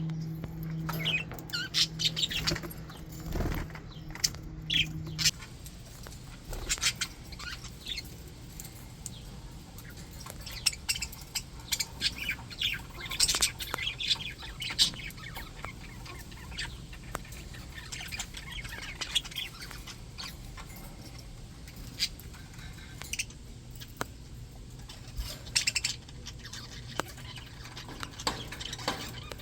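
A flock of English budgies chattering: scattered short chirps and warbles all through, with a steady low hum that stops about five seconds in.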